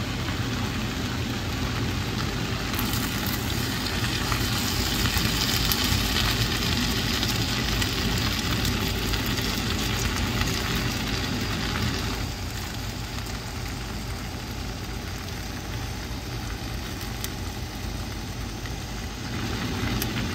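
Udon noodles with cabbage, carrot and sausage sizzling in a pan, a steady hiss with fine crackles over a constant low rumble. The sizzle drops back about twelve seconds in.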